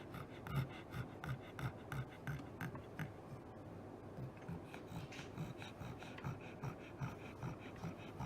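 Sleeping pug snoring with quick, even snorting breaths, about two or three a second.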